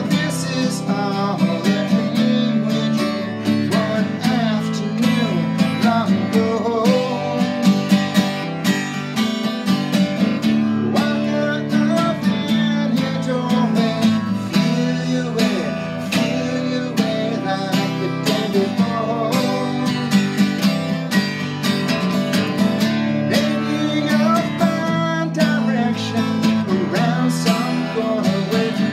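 Steel-string acoustic guitar strummed in a steady rhythm, with a man singing over it.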